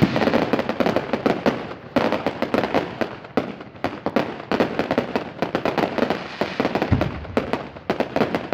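Fireworks going off in a dense, rapid barrage of crackling pops and bangs, many overlapping cracks every second without a break.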